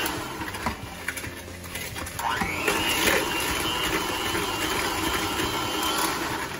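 Handheld electric mixer beating sugar in a plastic bowl. It eases off briefly, then spins up again with a rising whine about two seconds in and runs steadily until near the end.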